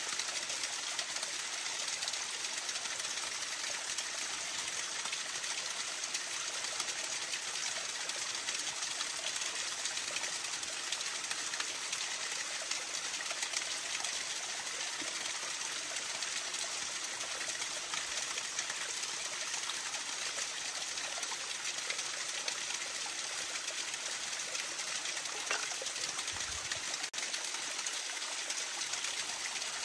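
Steady rushing noise of flowing water, even throughout, with one brief drop about 27 seconds in.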